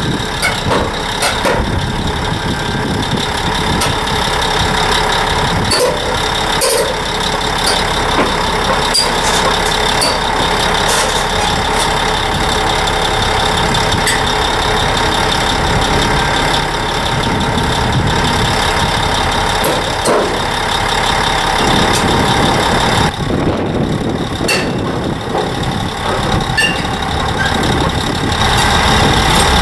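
Caterpillar D8 crawler dozer's diesel engine running steadily as the dozer creeps forward on a lowboy trailer deck, with scattered clanks from its steel tracks.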